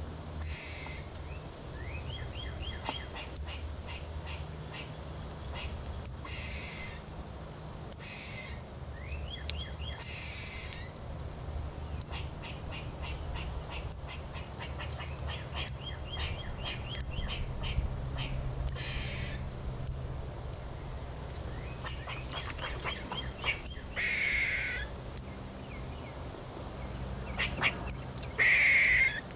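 Backyard songbirds calling: sharp, high chip notes every second or two, short runs of quick repeated notes, and a few short harsh, raspy calls, the loudest two near the end.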